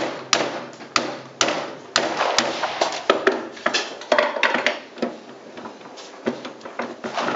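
Irregular series of sharp bangs, roughly one to two a second and some overlapping, each echoing briefly around a large hall: shots from miniature black-powder cannons firing along the line.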